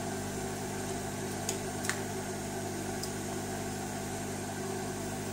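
Steady low electrical hum, with a few faint small clicks about a second and a half and two seconds in, and again near three seconds.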